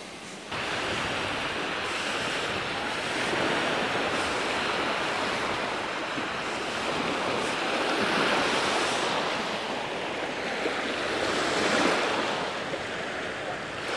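Small Lake Superior waves washing onto a sand-and-pebble shore. A steady wash that swells and eases every few seconds.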